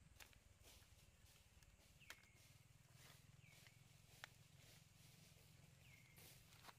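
Near silence: faint outdoor ambience with a low steady hum, a few faint ticks, and three short high calls that drop in pitch.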